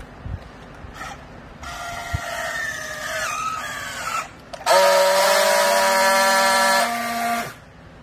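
Battery-powered handheld strapping tool on a bale's plastic strap: its motor whines for about two and a half seconds, falling in pitch as it pulls the strap tight, then after a short pause a louder steady buzz for nearly three seconds as it friction-welds the strap, cutting off sharply near the end.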